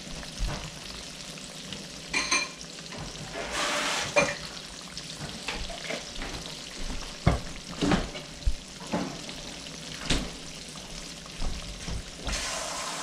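Battered fish fillets deep-frying in hot oil in a cast iron skillet: a steady sizzle, swelling briefly about four seconds in, broken by scattered sharp pops and crackles.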